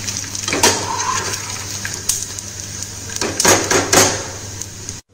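Hot ghee sizzling in a kadai while fried gond is scooped out with a perforated steel skimmer. The skimmer clinks and scrapes against the pan and the glass bowl several times.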